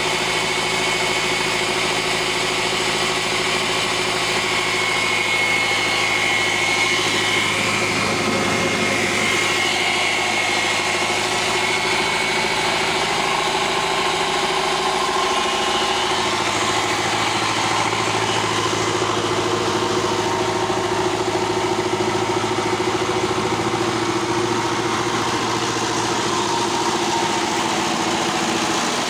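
Belarus tractor diesel engine running steadily as it drives a flour mill grinding wheat. The din stays even throughout, with a high whine over the first half.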